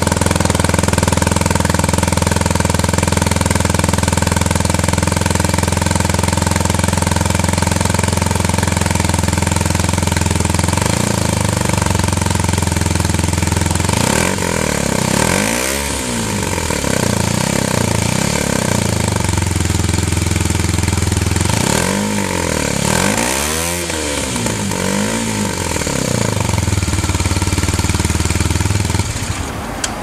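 2019 Kawasaki Ninja 125's single-cylinder four-stroke engine running through an aftermarket Arrow slip-on exhaust, idling steadily at first, then revved up and down a few times in the second half.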